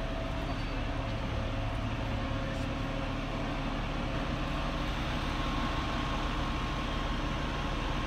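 Fire truck's engine idling steadily.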